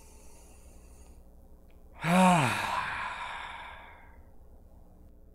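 A man taking a deliberate deep breath: a long, soft inhale, then about two seconds in a loud sigh out. The sigh opens with a brief voiced tone that falls in pitch and fades into breath over about two seconds.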